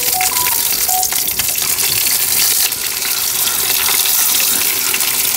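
Sardines frying on curry leaves in hot coconut oil in a clay pot: a steady sizzling hiss.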